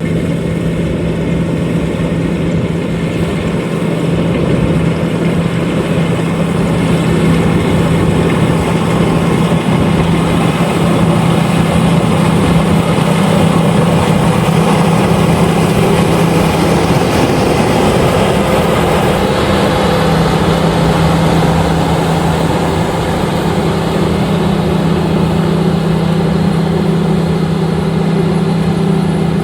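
LOVOL RG130EVO rice combine harvester running steadily: a constant low engine drone under the wide rushing noise of its machinery. The drone briefly weakens a little past the middle, then returns.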